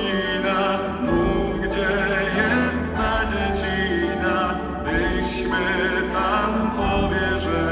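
Live rock-band arrangement of a Polish Christmas carol: a male lead singer carries the melody over electric guitar, keyboard, bass and drums, with a full, echoing church sound.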